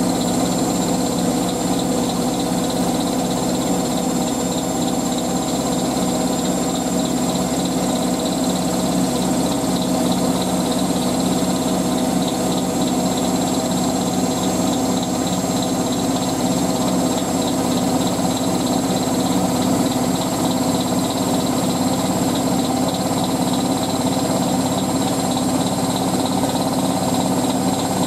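Hotpoint 9530W washing machine spinning a load of towels at speed, a steady motor whine with the cabinet vibrating on worn shock absorbers.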